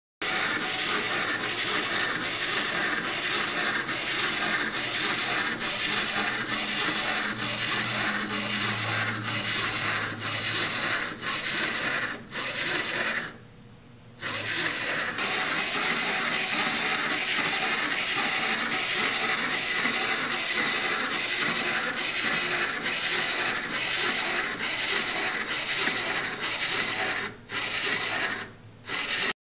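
Wind-up toy's plastic clockwork motor running down as it walks, a steady rasping whir with a regular tick about twice a second. It stops briefly about halfway through and twice near the end.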